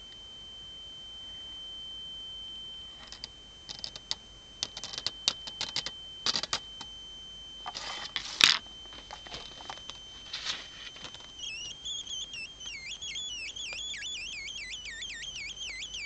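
Homemade blocking-oscillator sound generator built around a small wall transformer, giving a steady high whistle, with crackling clicks and one loud crack about halfway through. Near the end the tone starts warbling rapidly up and down in a bird-like chirping.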